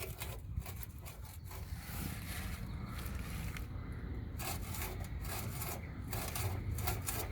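Irregular rubbing and scraping with scattered clicks over a low steady rumble. A loose car part with play in it is being worked by hand and knocks where it touches.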